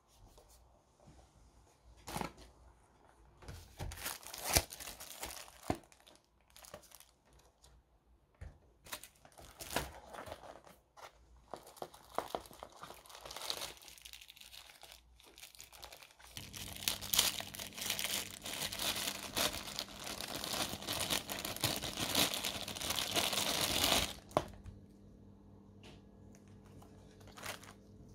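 Clear plastic packaging bags crinkling and rustling as they are handled in a cardboard box, with scattered sharp clicks and knocks. From a little past halfway there is about eight seconds of dense, continuous crinkling as the earphones are unwrapped from their plastic bag.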